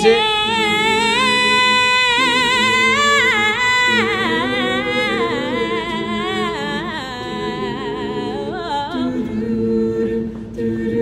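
A cappella group singing: a female soloist sings a long run of notes with wide vibrato, sliding up and down, over a steady chord hummed by mixed voices. The solo line ends about two seconds before the end, leaving the hummed chord.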